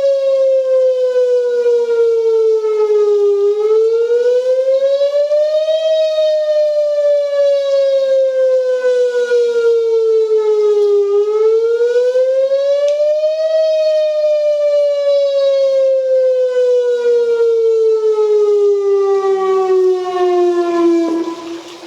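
Whelen WPS 2905 electronic siren sounding a slow tsunami-alert wail. The pitch falls slowly for several seconds, then rises over about two and a half seconds, twice. A long final fall ends in a sudden cut-off about a second before the end.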